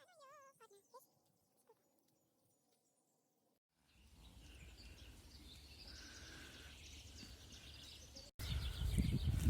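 Outdoor background with faint bird chirps. It opens with the end of a falling, whistle-like call, goes nearly silent, then cuts to steady outdoor hiss. Near the end a sudden louder low rumble sets in, like wind or handling on the microphone.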